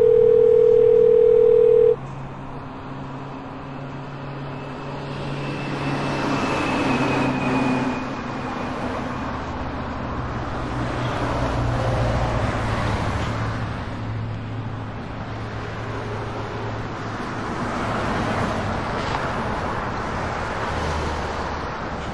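A telephone dial tone for about the first two seconds, cut off abruptly. Then a steady haze of city traffic noise with a low hum, swelling and fading.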